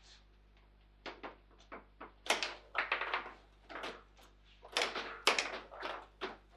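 Table football in play: a run of sharp, irregular knocks and clacks as the ball is struck by the plastic men and bounces off the table walls and rods. The knocks come in quick clusters, busiest about two seconds in and again about five seconds in.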